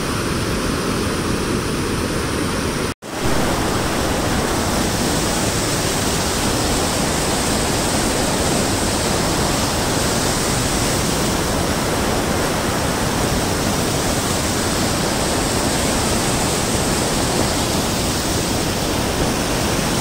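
Muddy floodwater rushing through the gates of a canal regulator and churning below it: a loud, steady rush of water, broken by a momentary cut-out about three seconds in.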